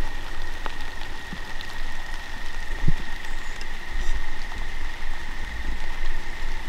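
Evening field ambience: a steady, high, unbroken insect trill over a rustling hiss and a low rumble, with a few faint knocks.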